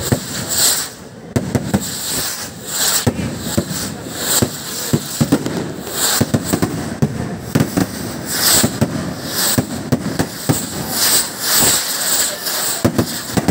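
Fireworks rockets fired one after another without pause: repeated hissing whooshes as they launch, mixed with a steady stream of sharp bangs and cracks.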